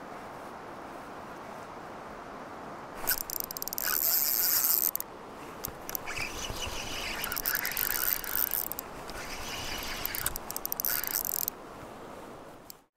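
Spinning reel's drag buzzing with fast clicks in bursts as a hooked coho salmon pulls line. The first burst comes about three seconds in, and more broken bursts follow for several seconds, over the steady rush of the river.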